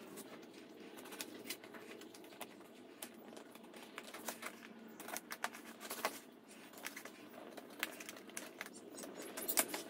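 A cardboard box being cut open with a knife: light scratching of the blade through packing tape and cardboard, with scattered small clicks and a louder flurry of cardboard handling near the end.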